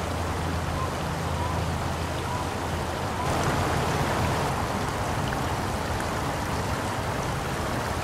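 Steady distant traffic rumble and hiss, swelling slightly about three seconds in.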